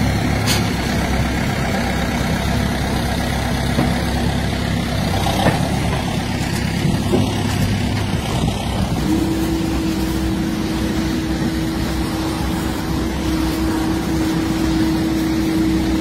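Heavy dump truck's engine running steadily. About nine seconds in, a steady high hum joins it.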